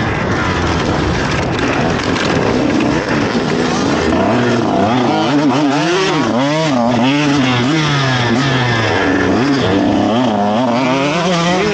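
KTM SX150 two-stroke single-cylinder motocross engine, heard from on the bike while it is ridden on track. The revs climb and drop over and over, with quick up-and-down swings through the middle as the rider works the throttle and gears through a turn.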